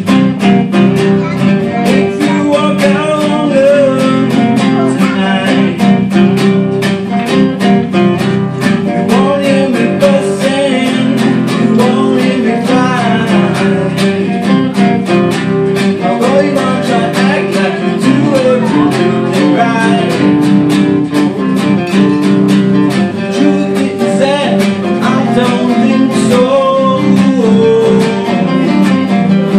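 Two acoustic guitars strummed together in a steady, even rhythm, with a man's voice singing over them at times.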